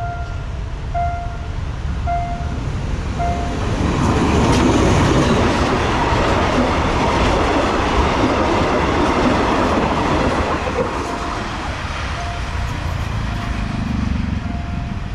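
Level-crossing warning bell dinging about once a second while a passenger train hauled by an Alsthom diesel-electric locomotive passes. The coaches' wheels clatter over the rails in a loud rush that swells about four seconds in, then fades back under the bell near the end.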